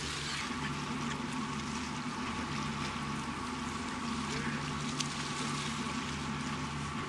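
A boat's engine running steadily, a constant low hum, with a haze of water and wind noise over it.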